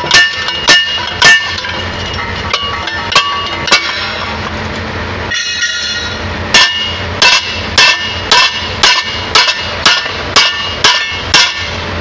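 Hammer blows ringing on steel as a concrete pump's S-valve and its worn wear plate are knocked apart: a few hard strikes and lighter knocks, a short pause about halfway, then a steady run of about two blows a second.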